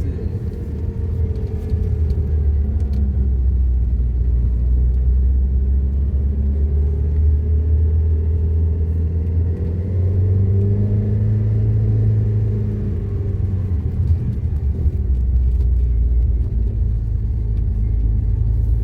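An engine running with a loud, steady low rumble, its pitch drifting slowly up and down.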